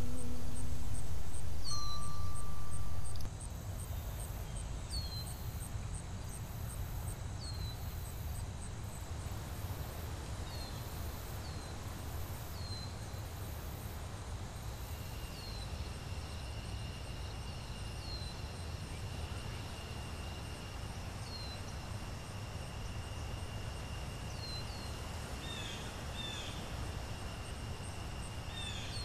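Outdoor nature ambience: birds giving short, falling chirps about once a second, with crickets and other insects trilling steadily over a low background rumble. The rumble is louder for the first three seconds, then drops.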